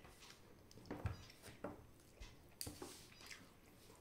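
Faint sounds of eating rice and dal by hand: fingers mixing food on a steel plate and chewing, heard as a handful of soft, irregular clicks and smacks.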